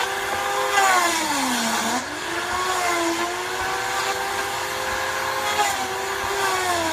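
Paint Shaver Pro paint-removal tool running, its motor whine sagging in pitch as the cutter head bites into the painted wood siding, then picking back up. It bogs down once about a second in and again near the end.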